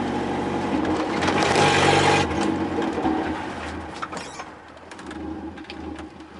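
GAZelle Farmer light truck driving, heard from inside the cab: the engine's steady drone with road and rattling noise, which drops off sharply a little over two seconds in and stays much quieter after.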